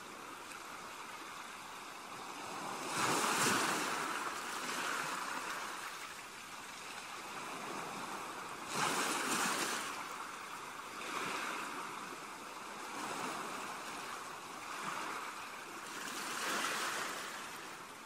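Sea waves washing onto the shore, a hiss that swells and falls back every few seconds; the strongest surges come about 3 and 9 seconds in.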